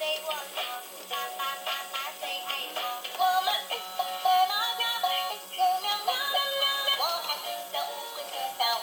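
Toy washing machine's built-in speaker playing an electronic tune with a synthesized singing voice, thin and without bass.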